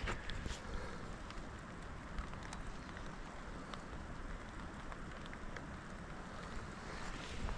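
Steady rain with a hiss and scattered small ticks of drops.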